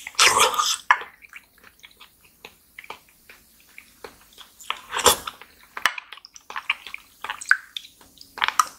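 Close-miked eating of small fruit jelly cups: two loud wet slurps as spoonfuls of jelly are sucked into the mouth, one at the start and one about five seconds in, with squishy chewing and light clicks of the spoon against the glass dish between them.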